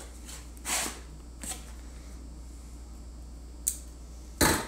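A small knife slitting the packing tape on a cardboard box: a few short, separate cutting strokes, then a louder one near the end.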